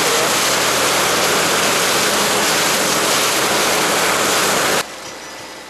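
Loud, steady rush of water spray thrown off the hull of a fishing boat under way, with a steady engine hum beneath it. It cuts off abruptly near the end, leaving a faint, fading background.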